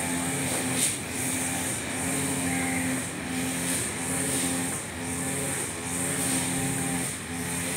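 Husqvarna backpack brush cutter's two-stroke engine running at cutting speed with nylon trimmer line, its note dipping and picking up again about once a second as the line sweeps through short grass.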